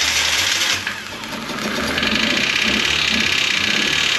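Kia Rio's four-cylinder engine running with a fast, steady metallic ticking clatter that grows louder about two seconds in. It is an abnormal valve-train noise.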